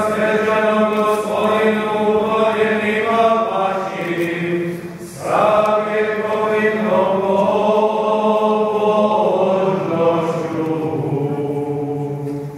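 Voices singing a liturgical chant, with a short break about five seconds in before the singing starts again.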